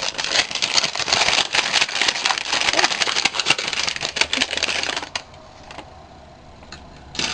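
Wrapped packaging being opened by hand, crinkling and rustling steadily for about five seconds, then stopping.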